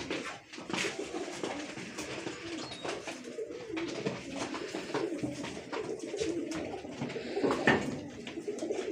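A loft full of Kasuri pigeons cooing, many overlapping coos at once, with scattered small clicks and a louder clatter near the end.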